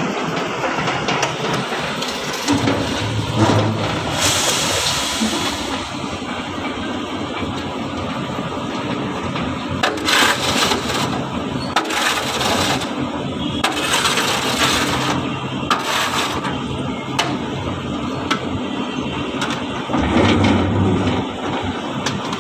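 Engine of a concrete mixer and bucket hoist running steadily, with several short bursts of grating, hissing noise as wet concrete is tipped out of the hoist bucket.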